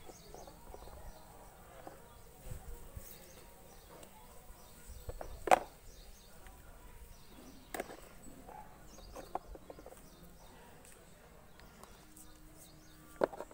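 Plastic toy animal figures being set down in a plastic toy truck bed: a few sharp clicks and taps, the loudest about five and a half seconds in.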